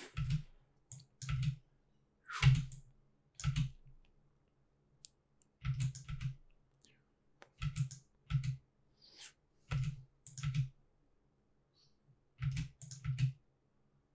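Computer keyboard keys pressed one at a time: about a dozen separate taps, often in quick pairs, with short pauses between them.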